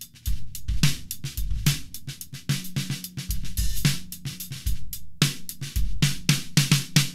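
Drum kit played in a steady groove, built around a deep 14x10 segmented yellow pine snare drum, with bass drum kicks and hi-hat and cymbal strokes several times a second.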